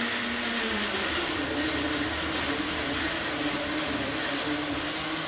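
Countertop blender running steadily, its motor whirring as it purées chunks of orange into juice.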